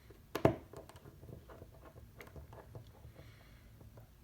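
Light clicks and taps of small tools and phone parts being handled on a work surface, with one louder knock about half a second in.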